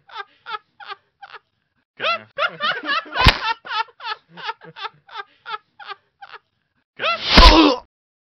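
Cartoon man's voice laughing in a quick string of "ha" syllables, broken by a sharp smack about three seconds in. Near the end comes a short loud yell with a heavy thud as the arrow strikes his head.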